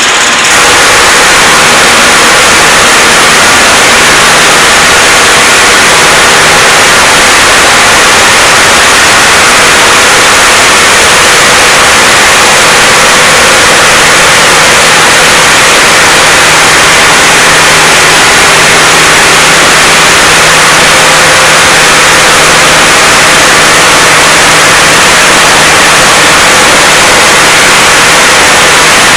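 Blastrac 365 floor milling machine running and milling: loud, steady, dense noise with a faint low hum underneath, unbroken throughout.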